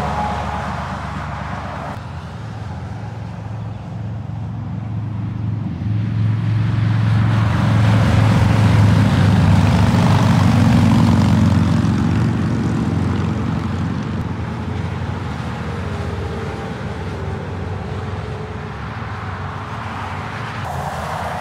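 Heavy diesel truck driving past on a motorway: engine drone and tyre noise swell to a peak about halfway through, then fade away.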